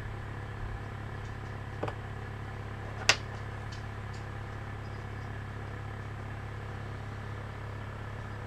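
Steady low electrical hum with a faint tick about two seconds in and one sharp click about three seconds in.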